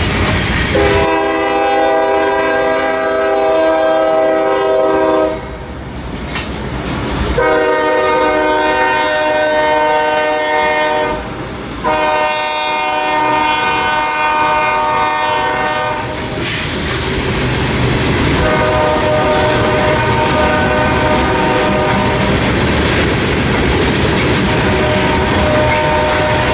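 Locomotive air horn sounding three long blasts, then a fainter drawn-out blast, over the steady rumble and clatter of a passing train's wheels on the rails.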